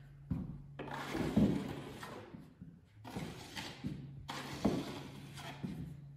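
A 6-inch steel taping knife scraping joint compound, heard as irregular scrapes and knocks as it is loaded off a mud pan and wiped into a ceiling corner.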